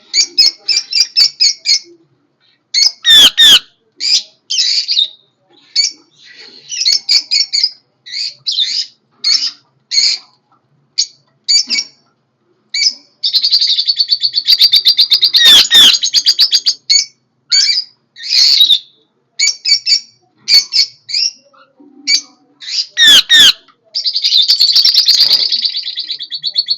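Whiteface cockatiels chirping: a run of short high chirps, with a longer warbling call midway and another near the end. Three loud sharp calls cut through, about three seconds in, midway, and a few seconds before the end.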